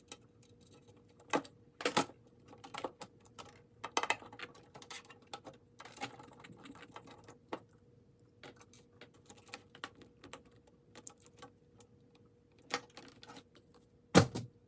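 Scattered sharp clicks and taps of hard laptop plastic and small parts being handled while the ThinkPad T41's screen assembly is taken apart, loudest about two seconds in and again near the end. A faint steady hum lies underneath.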